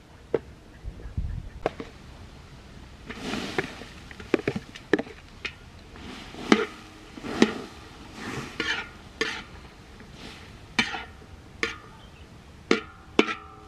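Cooking utensil knocking and scraping in a pot: a string of irregular sharp clinks with a few short scraping rubs, the last few knocks leaving a faint ring.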